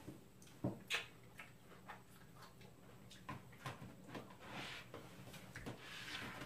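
Knife slicing a tomato on a plastic cutting board: a string of light clicks, about one every half second. In the second half there are softer brushing scrapes as the board is shifted on the table.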